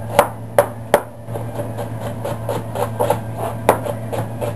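Chef's knife chopping an onion on a plastic cutting board. Three sharp knocks come in the first second, then a quicker run of lighter taps as the onion is diced small, with one harder knock near the end.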